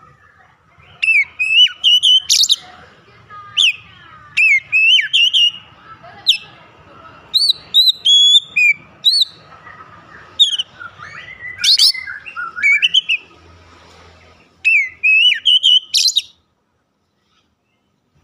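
Oriental magpie-robin singing loudly in quick bursts of whistled phrases that sweep up and down, with sharp high notes. The song stops abruptly about two seconds before the end.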